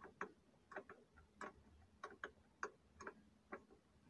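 Faint, irregular clicks and taps of metal on metal as a jumper cable end is worked into a battery terminal clamp, about nine or ten over a few seconds.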